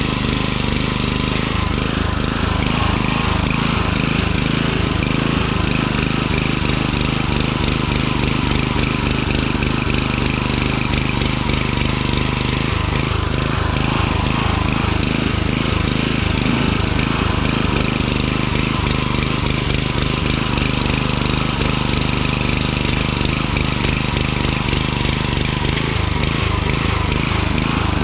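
Small gas-engine garden tiller running steadily as its tines churn through the loose soil of a raised bed.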